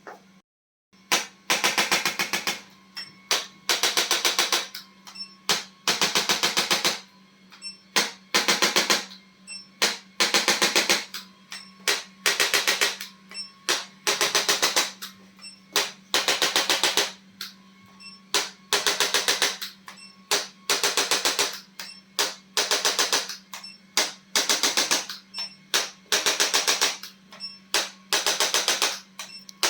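Handheld electric chiropractic adjusting instrument firing in short bursts, each a dense rattle of rapid ticks, repeating every second or two after a brief silence about a second in. A steady low hum runs underneath.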